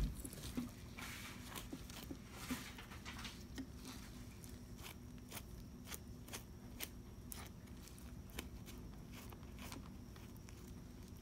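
Fillet knife cutting a bluegill fillet away from the rib cage, its blade clicking and crackling over the small rib bones in a run of irregular light clicks.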